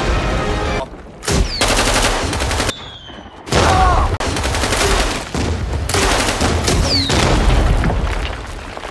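Action-film battle sound effects: dense automatic gunfire with blasts, broken by two brief lulls in the first few seconds.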